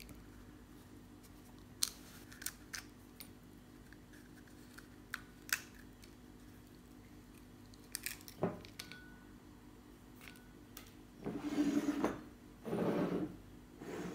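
Dried tamarind pods being peeled by hand, their brittle shells cracking off with scattered small cracks and clicks, then two longer rustling, scraping crunches near the end. A faint steady hum sits underneath.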